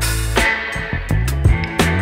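Background music with a bass line, guitar and drums keeping a steady beat.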